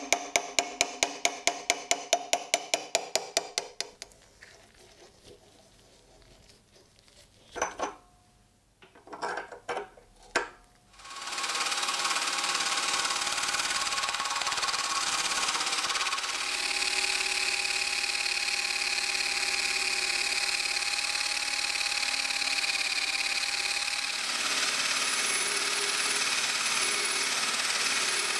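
Quick, even metal taps, about five a second, on a rusty steel part clamped in a vise, ending about four seconds in, then a few separate knocks. From about eleven seconds in, a hand drill spins a wire wheel brush against a rusty threaded steel pin, a steady scouring noise with the drill's whine over it, scrubbing off the rust.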